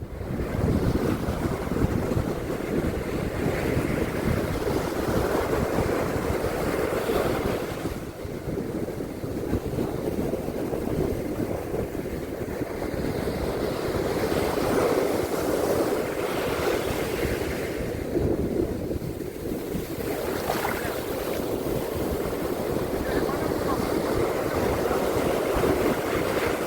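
Ocean surf washing onto a beach: a continuous rush of waves that swells and eases every few seconds.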